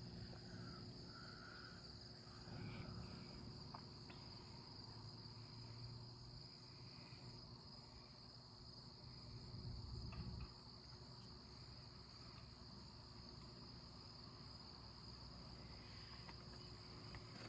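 Faint, steady insect chorus, a continuous high-pitched trill, over a low rumble that swells briefly about ten seconds in.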